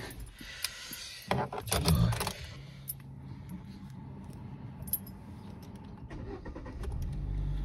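Keys jangling and clicking inside a car, in short rattly bursts with the busiest stretch about two seconds in, over a low steady hum that grows a little louder near the end.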